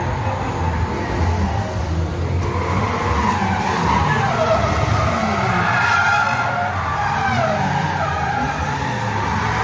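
Several stunt cars' engines revving in the arena, with tyres skidding and squealing as the cars drift. The revving and squealing pick up a couple of seconds in over a steady engine drone.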